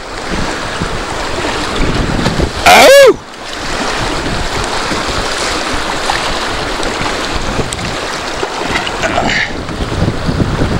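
Rushing river rapids splashing against the hull of a wooden dugout canoe, with wind buffeting the microphone. About three seconds in, a single loud shout from the paddler rises and falls in pitch over the water noise.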